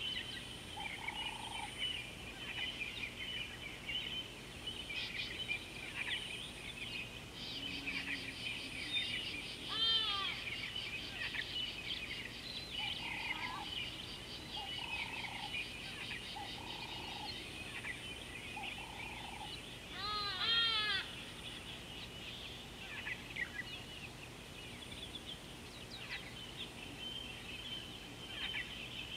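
Wild birds calling: a dense chorus of chirps and whistles, with two loud runs of rapid repeated calls about ten and twenty seconds in, and short low hoots here and there.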